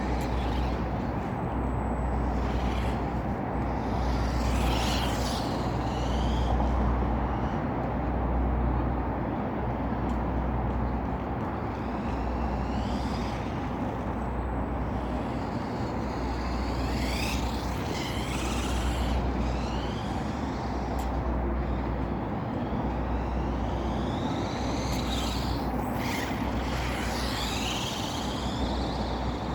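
Lego Technic RC buggy with six Mould King buggy motors driving, its electric motors giving a high whine that rises and falls several times as it speeds up and slows, over a steady low rumble.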